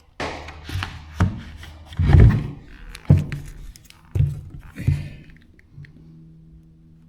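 Thuds and knocks from handyman work on a wall and skirting board: about seven at uneven spacing, the loudest about two seconds in. A faint steady low hum comes in near the end.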